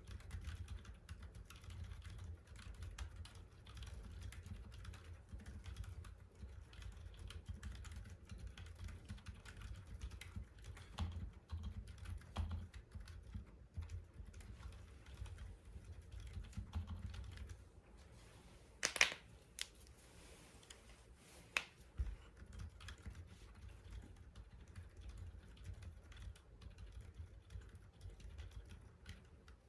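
Typing on a keyboard with Outemu silent (mute) yellow MX-style switches: a fast, continuous patter of muted key presses with dull low thuds. Past the middle the typing slows for a few seconds, and two sharper, louder clicks stand out.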